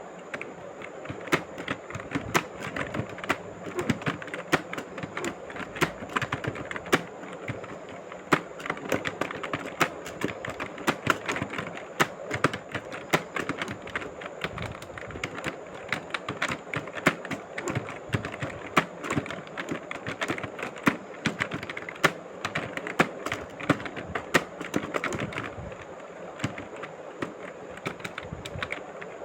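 Fast, continuous typing on a keyboard: a steady stream of key clicks, several a second, with frequent louder strikes.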